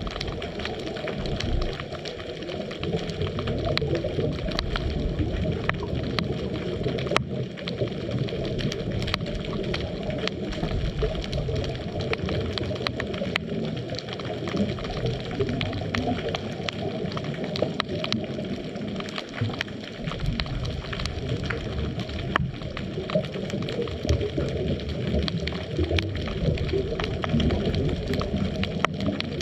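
Underwater ambience picked up by a GoPro in its housing: a steady low, muffled rushing with scattered faint clicks and crackles.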